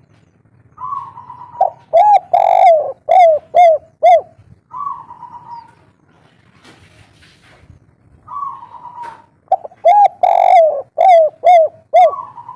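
Spotted dove (tekukur) cooing its 'kuk 3' song twice. Each phrase opens with a soft falling note, then comes a string of loud coos with one longer note, then three short clipped coos, and it ends with another soft falling note.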